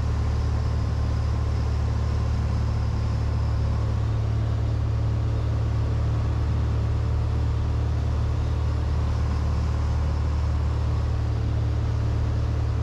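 Cessna 182's piston engine and propeller droning steadily inside the cockpit, held at one power setting with no change in pitch or level.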